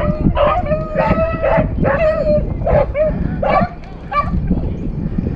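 Rabbit hounds barking in a quick series of short, loud barks, a bark every half second or so, with a brief lull about four seconds in. A low rumble runs underneath.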